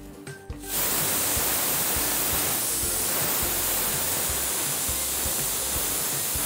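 Pressure cooker letting off steam through its whistle valve: a steady hiss that starts suddenly about a second in. It is one of the whistles counted to time the mutton in the cooker.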